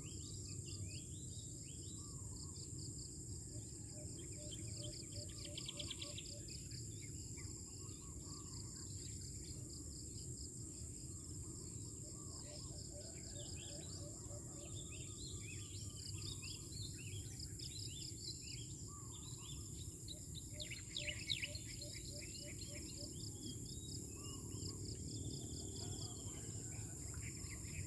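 Steady high-pitched insect trilling with many birds chirping over it, and a low background rumble.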